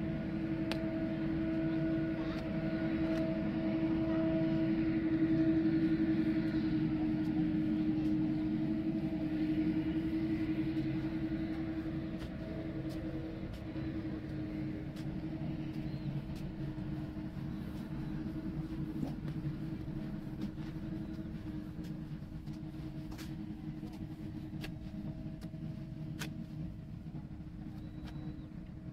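Jet airliner engines droning steadily with a constant low hum over a rumble, loudest about five seconds in and slowly fading after that.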